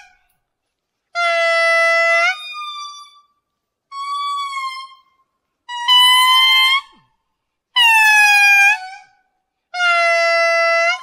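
Indri singing: five long, drawn-out pitched notes of about a second each, roughly two seconds apart. The second note is quieter and higher than the rest.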